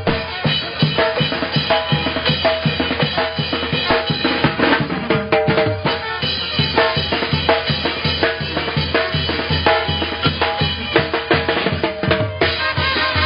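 A band playing live, led by drums: a steady, evenly repeating bass drum and snare beat with held horn-like notes over it.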